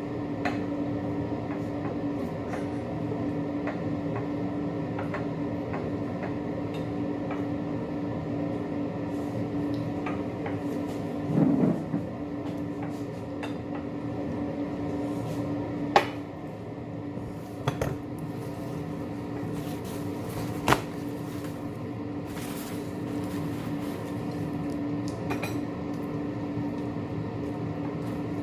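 Dishes and utensils clinking and knocking a few times, sharp separate clicks, over a steady machine hum with one held tone.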